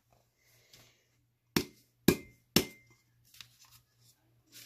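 Three sharp knocks about half a second apart, the last two followed by a brief ringing tone: a glitter-coated tumbler being tapped down to knock off loose glitter.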